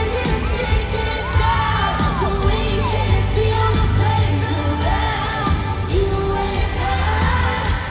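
Live pop song played through an arena sound system: a woman's singing voice, sliding between notes, over a heavy, steady bass and beat, with some crowd cheering.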